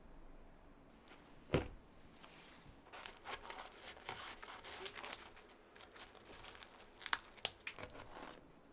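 Kitchen scissors snipping through a baked pizza's crust, crunching and crackling in two runs of cuts. Earlier, about a second and a half in, a single thump as the wire air-fryer basket is set down on the counter.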